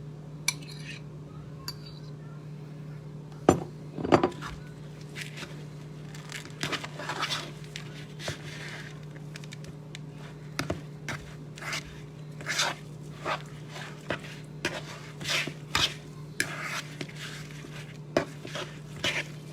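A spoon clinking and scraping against a mixing bowl in irregular strokes while mashed banana and oats are poured in and stirred into a dough, with two louder knocks about four seconds in. A steady low hum runs underneath.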